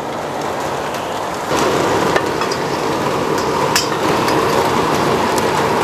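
Water at a hard rolling boil in a wok, a steady bubbling rush that grows louder about a second and a half in, with a few light metal clinks.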